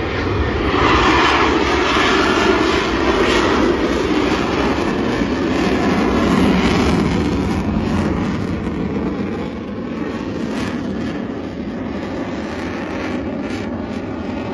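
Jet aircraft engine noise from a single jet climbing away, loud in the first half and fading over the last few seconds as the aircraft recedes.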